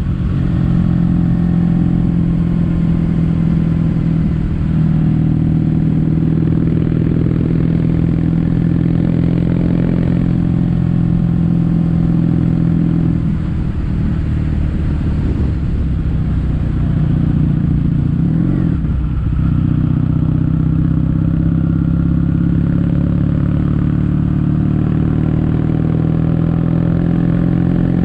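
Kawasaki W800's parallel-twin engine running through Yamato stainless steel Caburton-style silencers in their standard setup, heard while riding. The low exhaust note rises and falls with the throttle, changing briefly about halfway through and again about two-thirds in.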